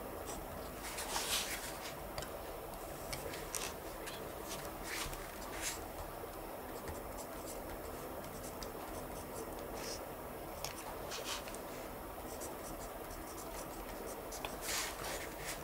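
Pen scratching on paper in irregular short strokes as someone writes by hand, a few louder strokes about a second in and near the end, over a steady faint room hiss.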